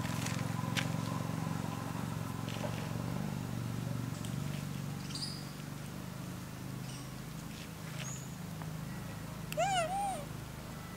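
A long-tailed macaque gives one short, high-pitched call that rises and falls twice, near the end. A steady low hum runs underneath, with a few faint chirps and clicks earlier.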